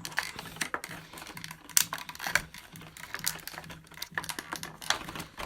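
Irregular clicks, scratches and rustles of fingers picking and tugging at tape on a small product box, trying to get it open.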